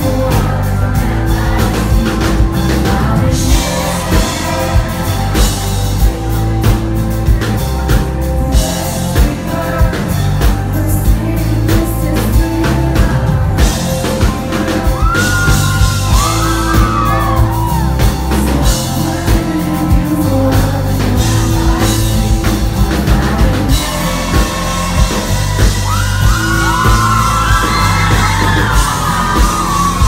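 Live pop-rock band playing loud: drum kit, bass and acoustic guitar, with singing and high whooping screams from the crowd a little past the middle and again near the end.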